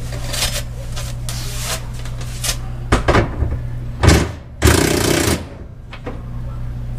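Metal tools and hardware clinking and clattering on a concrete floor, with a loud knock about four seconds in and a louder burst of noise just under a second long right after, over a steady low hum.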